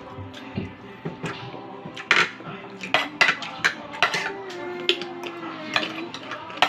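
Cutlery clinking and scraping against plates and dishes while eating, a dozen or so sharp clinks, with steady background music underneath.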